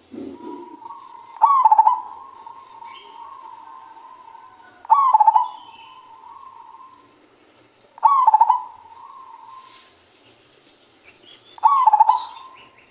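Male zebra dove (perkutut) cooing its deep song, four phrases at about three-and-a-half-second intervals, each a quick stuttering start followed by a long drawn-out note. Faint high chirps sound between the phrases.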